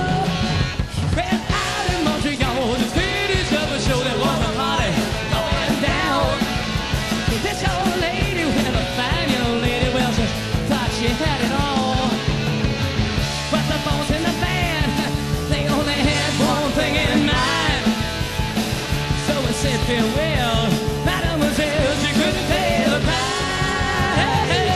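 Live rock band playing loud: distorted electric guitar over a driving drum kit and bass, with a singer's voice over it.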